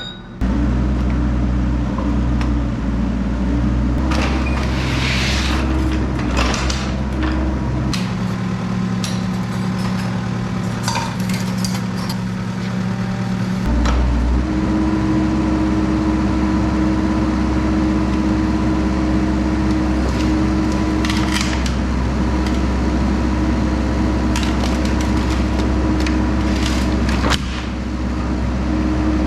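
Kubota excavator's diesel engine running with its pitch and load shifting as the machine works, with repeated clanks and knocks of the bucket against stones and ground.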